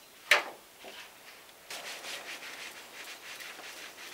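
A sharp knock about a third of a second in, then from near the two-second mark a run of quick rubbing, scraping strokes: a paintbrush working paint onto the van's sheet-metal wall.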